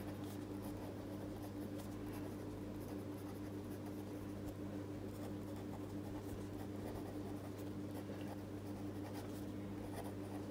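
Pilot V5 Hi-Tecpoint gel pen's 0.5 mm tip writing on Rhodia dot-pad paper: faint scratching of pen strokes, over a steady low hum.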